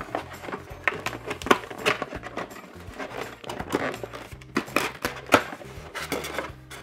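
Stiff cardboard box being folded and handled: irregular scrapes, flaps and light knocks of card against card and the table, over faint background music.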